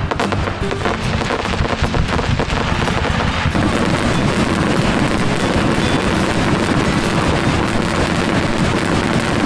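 Fireworks crackling and popping over background music, becoming a dense, continuous crackle about three and a half seconds in.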